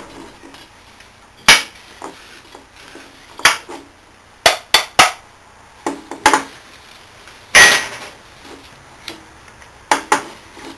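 Hammer blows on a car air-conditioning compressor's housing: about a dozen sharp knocks at uneven intervals, each with a short ring, as the housing is knocked apart to free the swash-plate piston assembly.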